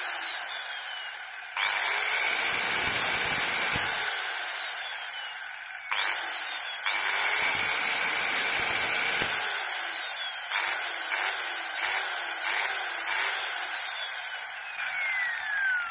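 Makita M0900B 100 mm angle grinder, rated 12,000 rpm with no load, switched on and off with its slide switch while running free. Twice its motor whines up to speed, runs a couple of seconds and winds down with a falling whine. Then it gives five quick on-off blips in a row before a long spin-down near the end.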